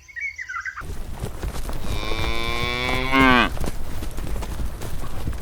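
A cow mooing once, for about a second and a half, the call dropping in pitch at its end, over a steady background hiss and low rumble.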